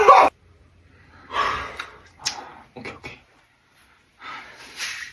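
A beatboxed sound cuts off, followed by a few short, breathy puffs of air from a person's mouth and nose, spread over several seconds.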